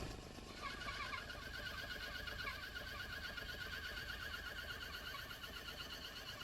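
Home-built metal-cutting bandsaw running, its electric motor driving the blade through a gearbox, while the blade cuts a piece of timber. There is a steady low machine hum, and a wavering whine joins about half a second in.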